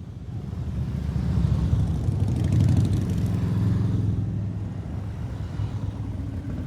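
Motorcycle engine running with a low, steady note, swelling up over the first second or two and then holding at a fairly even level.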